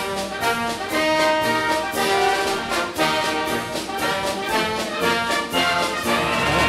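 Brass music: an ensemble playing a tune in held chords with a moving melody line.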